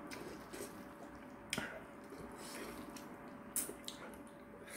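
Faint wet chewing and squishing of thick kalguksu noodles, with two light clicks of metal chopsticks against a stainless steel bowl, about a second and a half in and again near the end.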